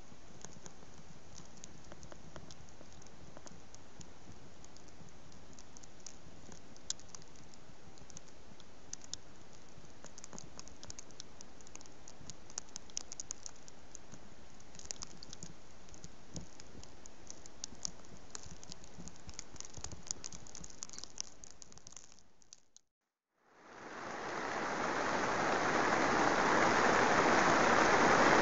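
Quiet outdoor hush with scattered light ticks and patter, fading out about 22 seconds in. After a moment of silence, steady rain fades in and grows loud near the end.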